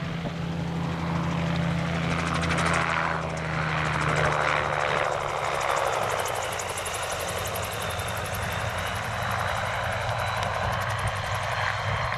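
Gyroplane (autogyro) flying low past, its engine and pusher propeller running steadily, with the pitch dropping as it passes about three seconds in.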